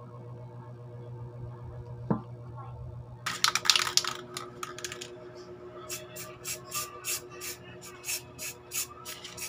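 Aerosol spray paint can spraying: one long hiss starting about three seconds in, then a run of short puffs, about three a second.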